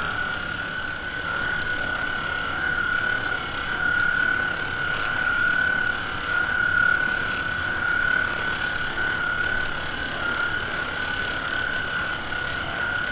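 Handheld percussion massage gun running with a steady high-pitched motor whine, its pitch wavering slightly as it is worked over the back.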